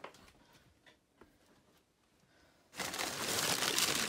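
Quiet at first with a few faint taps, then about two-thirds of the way in a steady rustling and crinkling of paper and cardboard being rummaged through in a plastic bin.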